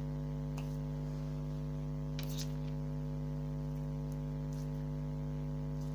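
Steady electrical hum, with a few faint soft clicks as a lump of bubbly slime is pressed and pulled between the fingers.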